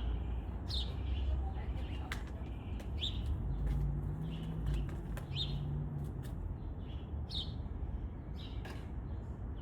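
Garden birdsong: one bird repeats a short, high, downward-sliding call about every two seconds, with fainter chirps and ticks from other birds, over a steady low background rumble.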